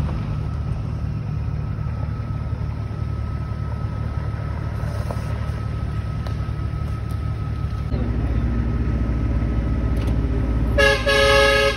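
Four-wheel-drive utes driving along a gravel road: a steady engine rumble that grows louder about eight seconds in as the next vehicle approaches. Near the end, one short horn toot.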